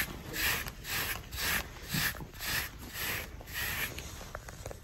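A grooming brush swept repeatedly over a horse's shedding coat, in short, even strokes about two a second.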